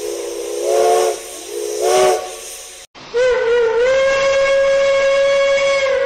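Two short blasts of a chime steam locomotive whistle, several tones sounding together and sliding up in pitch on each blast, with steam hiss. This cuts off abruptly and a second steam whistle starts a long single-note blast that wavers for a moment and then holds steady.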